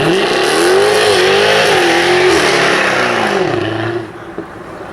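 Jaguar F-Type R's supercharged V8 revving hard, its pitch rising and falling, then dropping away sharply about four seconds in.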